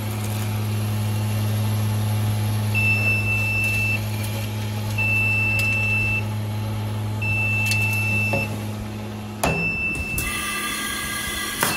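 Electromagnetic vibratory bowl feeder of an automatic blind-rivet feeding machine running with a steady low hum, which stops about nine and a half seconds in. A high electronic beep sounds four times, each over a second long, about every two seconds.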